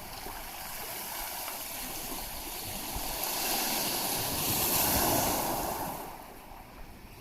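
A gentle wave washing up the shore, swelling to a peak about five seconds in and then falling away.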